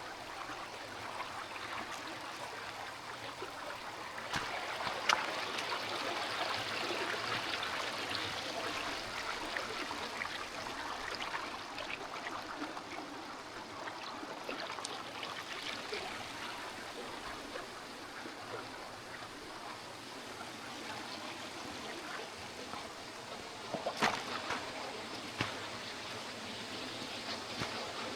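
Creek water running steadily over rocks, with a few brief sharp knocks, one about five seconds in and a couple near the end.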